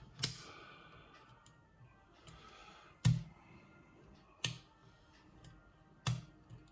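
Lock pick and tension wrench working the pins of a challenge lock: four sharp, irregular metallic clicks with faint scratching of the pick between them.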